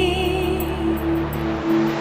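Background music: the instrumental lead-in to a Hindi film song, long held notes with a slight waver over a low sustained chord that drops out near the end.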